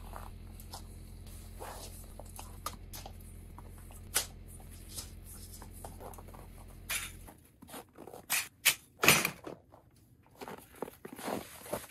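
Scattered clicks, taps and rustles of small things being handled in a small enclosed space, over a steady low hum that stops about seven seconds in; the handling noises grow louder after the hum stops.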